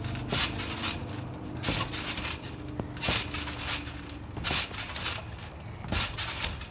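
A trampoline mat and springs under two people bouncing: irregular thuds of feet landing, about one every second or so, with light metallic clinks.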